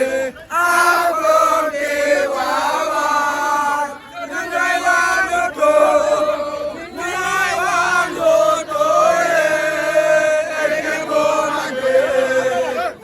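A group of men chanting and singing together, in sung phrases separated by short breaks.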